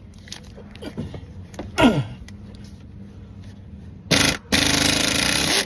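Cordless quarter-inch-drive ratchet whirring in two bursts, a short one and then a longer run of about a second, as it works on a starter mounting bolt. A short falling squeak comes about two seconds in.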